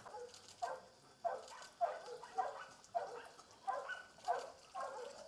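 A dog barking over and over at a steady pace, about two barks a second.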